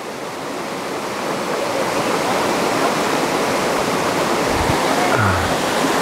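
Creek water rushing over a rocky riffle: a steady rush of white water that grows louder over the first two seconds, then holds.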